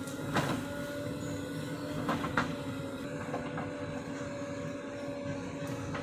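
JCB backhoe loader's engine running steadily with an even hum while the backhoe arm works, with a few sharp metallic knocks, about half a second in and twice near two seconds in.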